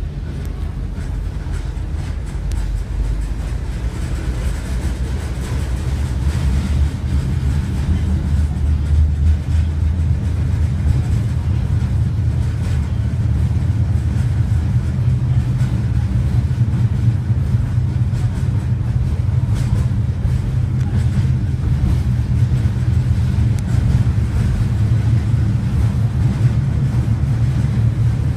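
Tram running on its rails, heard from inside the passenger car: a steady low rumble that grows louder and a little higher in pitch about six seconds in as it picks up speed.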